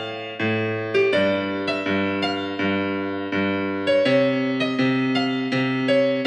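Piano playing a simple arrangement in which each hand plays one note at a time: a quick melody line over a bass line of single notes struck about once or twice a second, each note decaying.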